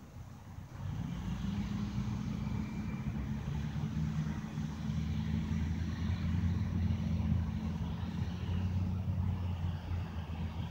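Truck engine running with a steady low drone that comes in about a second in and holds.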